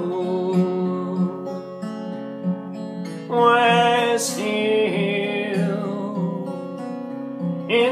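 Acoustic guitar playing under a man singing a slow line of long held notes.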